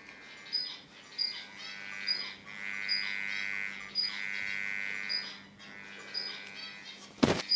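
Electrical buzz from a bucking-coil transformer wound from washing-machine pump coils. It swells and fades in stretches of about a second, under a steady low hum. A short high chirp repeats roughly once a second, and a sharp knock comes near the end.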